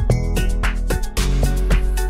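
Background music with a steady beat and deep bass, playing under the end screen.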